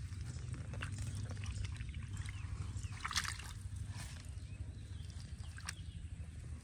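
Hands squelching and sloshing through wet mud and shallow muddy water, with scattered small splashes and one brighter splash about three seconds in, over a low steady rumble.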